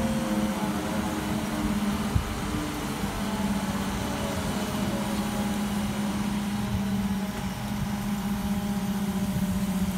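Mobile crane's engine running steadily with a constant hum while it hoists a load, and a single sharp knock about two seconds in.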